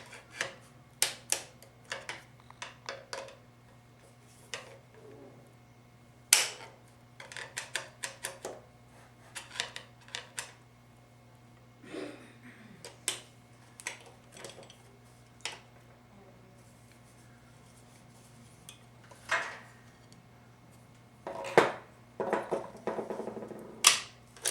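Metal parts of a 4L60E transmission input drum clinking and tapping as they are handled and set down by hand: scattered sharp clicks, with a denser stretch of rattling near the end.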